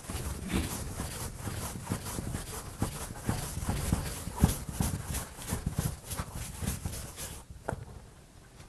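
Writing and drawing on a board: a run of irregular taps and scrapes that thins out near the end.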